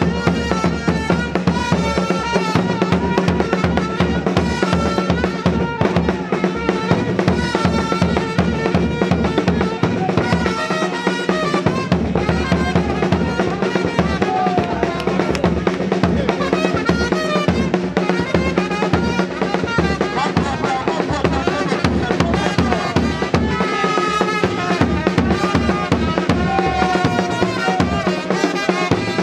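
Music with a fast, steady drum beat and held melodic notes over it.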